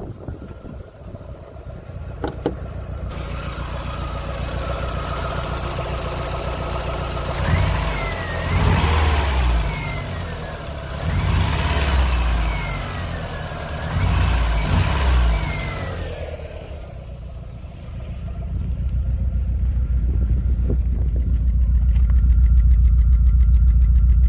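VW Golf Mk4 GTI's 1.8T four-cylinder turbo engine running rough with a misfire, which the owner traces to a failing ignition amplifier. It is revved three times in the middle, then settles into a steady, louder idle.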